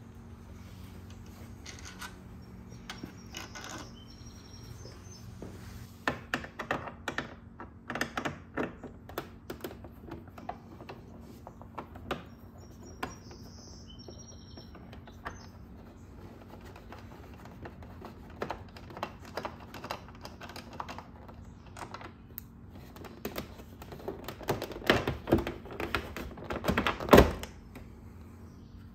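Irregular clicks, taps and knocks of a screwdriver and plastic body panels being handled while a cover is taken off a Honda Super Cub C125's battery compartment. The clicks come in clusters, and the loudest knock comes near the end.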